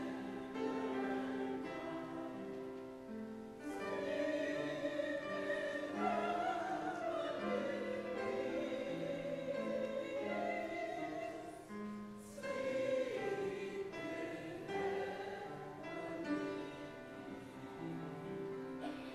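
A slow song sung over instrumental accompaniment, with held chords, a stepping bass line and voices rising and falling above them.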